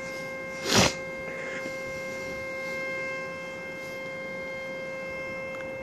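Eico Model 377 tube audio generator's output playing through a speaker as one steady mid-pitched tone with faint overtones. A single knock about a second in.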